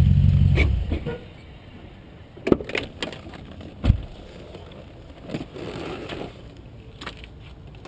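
A car engine idling close by cuts off about a second in, followed by a few separate sharp knocks and thumps.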